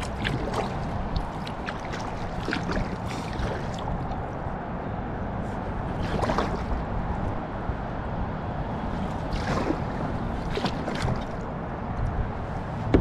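Kayak paddle strokes in calm river water: irregular splashes and drips from the paddle blades over a steady low rush of water.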